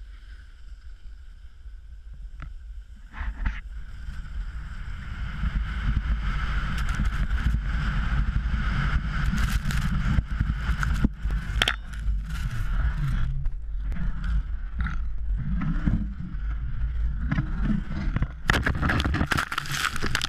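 Wind rushing over a GoPro and skis hissing and scraping on packed snow, growing louder as the skier picks up speed about five seconds in. Near the end, rough crackling as snow sprays over the camera.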